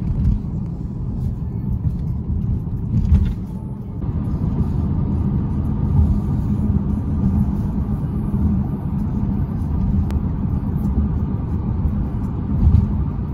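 Road noise inside a moving car's cabin: a steady low rumble from the tyres and engine at highway speed, with a few brief swells.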